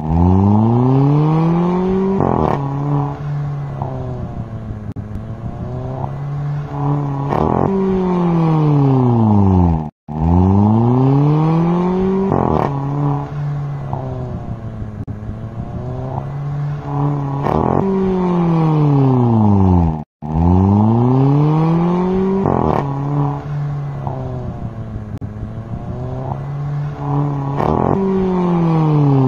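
Volkswagen Polo GT's engine and exhaust, loud, revving and pulling away: the pitch climbs over about two seconds, holds steady, then rises and falls again. The same passage repeats three times, cut off briefly twice.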